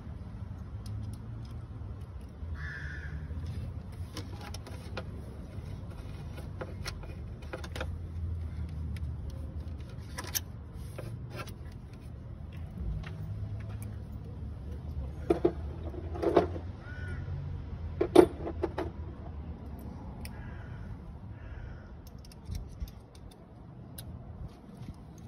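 Metal hand tool clicking and clinking against engine-bay parts, with a few sharp, louder clinks about two-thirds of the way in. A crow caws a few times in the background.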